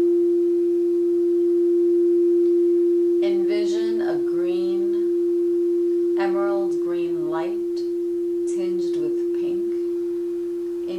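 Crystal singing bowl ringing with one steady, unbroken tone that fades only slowly. A soft voice is heard over it a few times.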